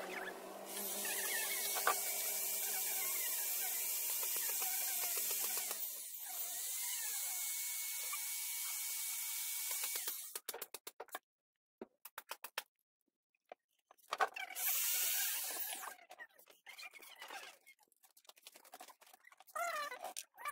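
A power tool running steadily with a gritty, hissing whir for about ten seconds, dipping briefly about six seconds in. It stops, runs again in one short burst about fifteen seconds in, and then comes a scatter of light clicks and taps.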